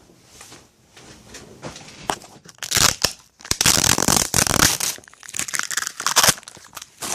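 Rustling and crinkling handling noise, coming and going in irregular bursts, loudest from about three to five seconds in.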